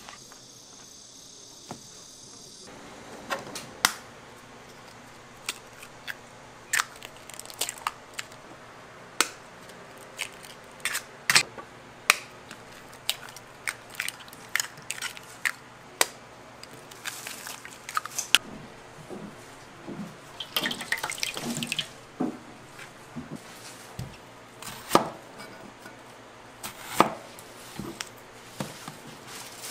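Kitchen prep work: dripping and splashing water with irregular sharp clinks and taps, starting about three seconds in.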